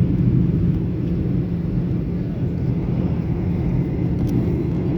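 Steady low drone of a jet airliner's engines and airflow, heard from inside the passenger cabin.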